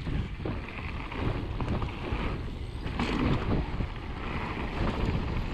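Wind buffeting the microphone over the rumble of mountain bike tyres rolling fast on a dirt forest trail, with a few short knocks from bumps.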